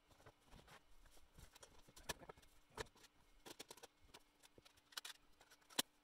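Faint, irregular small clicks and taps of hands peeling the backing off a printed plastic label and pressing it onto a plastic smoke alarm cover, with one sharper click near the end.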